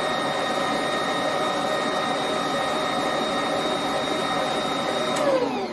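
Electric stand mixer motor running steadily as it mixes a very soft dough. Near the end it is switched off with a click, and the pitch falls as the motor winds down.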